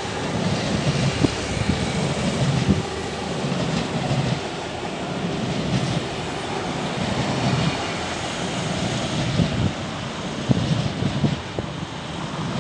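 RER E MI2N double-deck electric train passing: a steady rumble of wheels on rail with a few sharp clicks over the rail joints.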